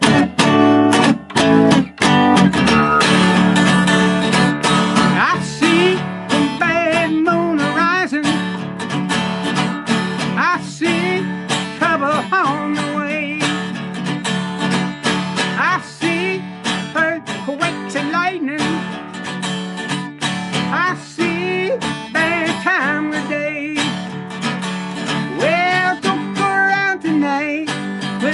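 Acoustic guitar strummed in a steady rhythm, starting suddenly at the beginning, with a wavering melody line over it.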